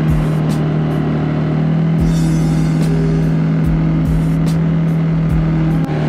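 CFMOTO CForce 600 ATV's single-cylinder engine running under throttle at steady high revs as a constant drone, with brief scattered ticks over it.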